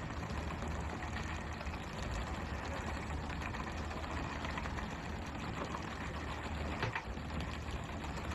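Fishing vessel's engine running with a steady low hum under an even hiss of water, with scattered light knocks and a sharper one about seven seconds in.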